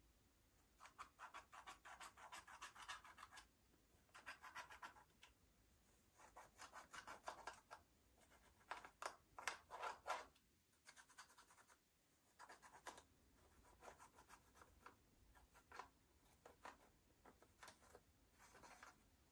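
Slime being mixed and worked with makeup: faint bursts of rapid crackling clicks, each lasting a second or two, about four in the first half, then weaker and sparser.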